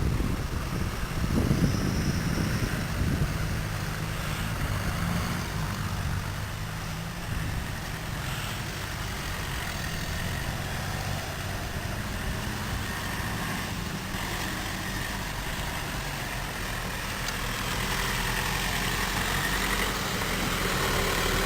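Off-road 4x4's engine running at low revs, a little louder for a couple of seconds near the start, then a steady hum.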